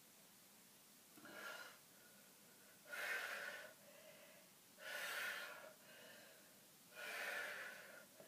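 A woman breathing hard from the effort of repeated bodyweight hip-hinge reps: four faint, heavy breaths about two seconds apart.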